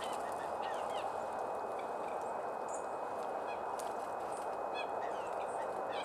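Wild songbirds calling at a seed feeder: many short chirps and quick call notes scattered through, with a few sharp clicks, over a steady rushing background noise.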